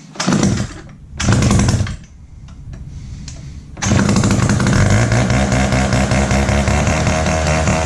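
Wright GS2016 gas-powered reciprocating saw's engine being started: two short loud bursts in the first two seconds, then it catches about four seconds in and runs steadily.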